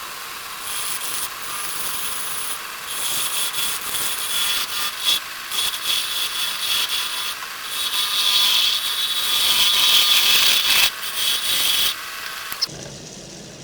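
A turning tool cutting into a spinning wooden blank on a wood lathe: a rough, uneven scraping hiss that swells in the second half and breaks off sharply about a second before the end.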